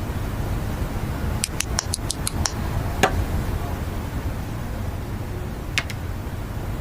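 Small sharp clicks of plastic model kit parts being handled and fitted: a quick run of about seven clicks in the first few seconds, then single clicks about three seconds in and near the end, over a steady low hum.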